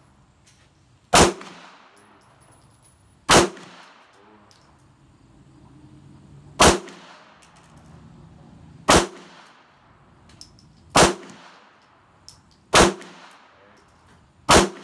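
Semi-automatic pistol fired seven times in slow, aimed single shots about two to three seconds apart, each shot followed by a short echo.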